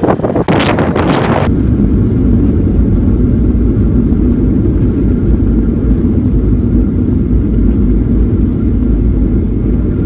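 Gusty wind buffeting the microphone for about a second and a half. Then a cut to the steady low drone of an airliner cabin in flight: engine and airflow noise heard from inside the aircraft.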